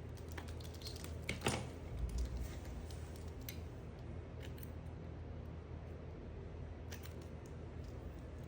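A knife cutting a bar of soap: a quick run of crisp cracking and scraping strokes about a second in, a dull knock a moment later, then a few scattered light clicks.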